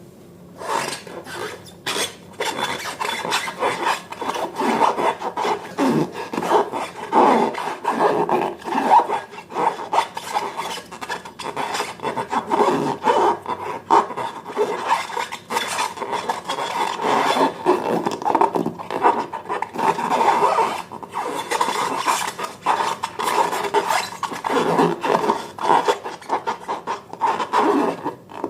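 Slime being worked by hand or stirred, giving a continuous run of sticky, irregular crackling and squelching rubs.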